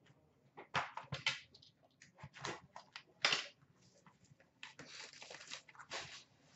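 A sealed box of hockey cards being handled: a series of light clicks, taps and scrapes as it is taken off a shelf and set down, with a stretch of rustling about five seconds in.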